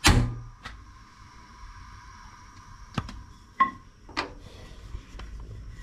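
Gas stove burner lighting: a loud pop as the flame catches, then a steady thin whine over a faint hiss that stops about three and a half seconds in, followed by a few light clicks.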